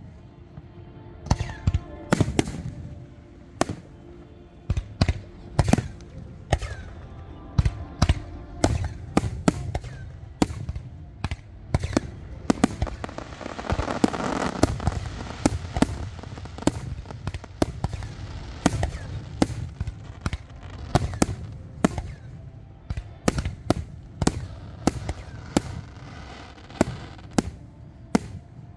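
Aerial fireworks shells bursting in a rapid series of sharp bangs, about one or two a second, with their booms carrying low. About halfway through the bangs thicken into a dense crackling stretch from glittering crackle stars.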